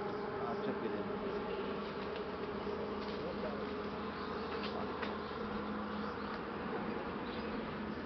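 Steady buzzing drone of insects, holding an even pitch throughout.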